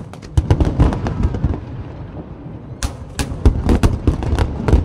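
Fireworks display: aerial shells bursting in rapid volleys of sharp bangs and crackles. A dense run of bangs in the first second and a half gives way to a lull of about a second, then another dense volley follows.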